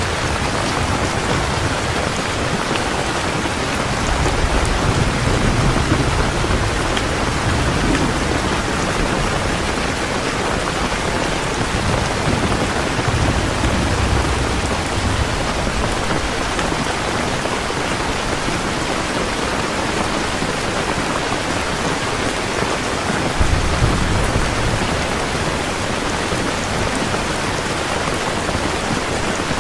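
Heavy rain falling steadily, with low rolls of distant thunder swelling several times.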